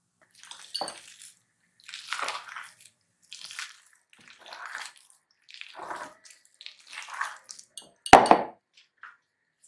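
Wire whisk stirring thick fritter batter of flour, egg and chopped cooked apple in a glass bowl: a wet stirring stroke about once a second. A little after eight seconds comes one sharp clink, the loudest sound, as the whisk knocks the glass bowl.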